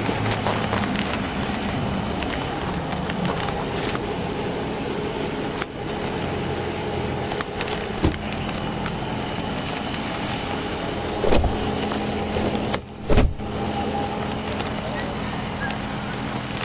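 Steady hum of an idling vehicle, with a thin high steady tone over it and a few sharp knocks or clicks scattered through, the loudest two about 11 and 13 seconds in.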